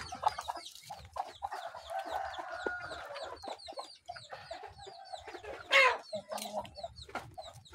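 Kampung (village) chickens clucking around a bowl of corn-and-rice feed, with rapid high chirps throughout and one short, louder call about six seconds in.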